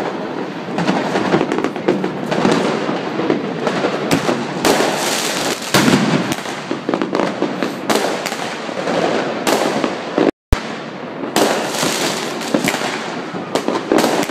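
Many fireworks and firecrackers going off at once: a continuous dense crackle packed with sharp bangs. The sound drops out for a split second about ten seconds in.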